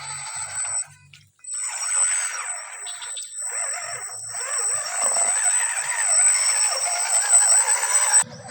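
Electric motor and gearbox of a radio-controlled scale crawler whining under throttle as it drives, the pitch wavering with speed. It stops briefly about a second in, then runs on until it cuts off abruptly near the end.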